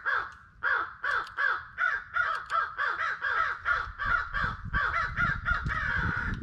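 Crows cawing in a fast, unbroken series, about three harsh caws a second. About four seconds in, a low rumble joins them.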